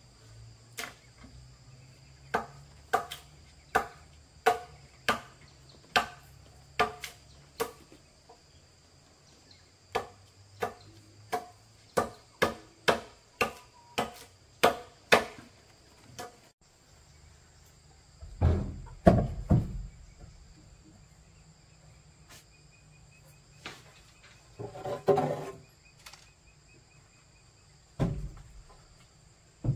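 A hand tool striking wood in two runs of steady blows, the first about one a second, the second quicker at about two a second, followed by a few heavier, duller thumps in the last third. Insects drone steadily in the background.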